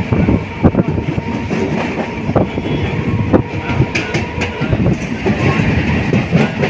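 Moving passenger train heard from inside the carriage: wheels clattering in irregular knocks over a continuous running rumble, with a faint steady hum.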